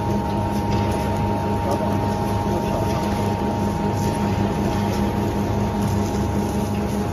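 Screw-type biomass sawdust briquette extruder running under load with a steady mechanical hum holding two constant tones, one low and one higher, as it presses a briquette out through its heated forming tube. A few faint ticks sound over the hum.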